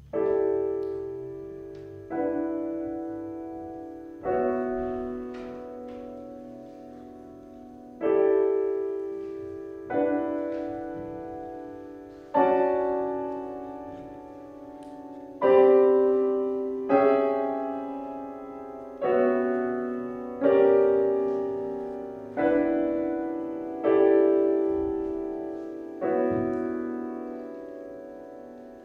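Steinway grand piano playing a slow series of chords, about a dozen in all. Each is struck and left to ring and fade before the next, roughly one every two seconds.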